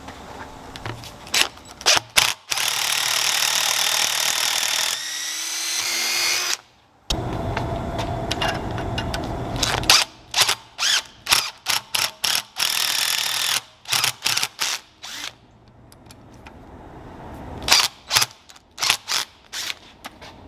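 Electric drill drilling out the rivet of a mower throttle's friction-plate pivot. It runs steadily, spins down with a falling pitch about five to six seconds in, and runs again. It is then pulsed on and off in many short bursts, with a quieter stretch before a last string of bursts near the end.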